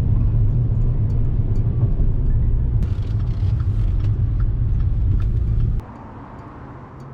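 Motorcycle engine running with a steady low rumble, which drops away sharply about six seconds in.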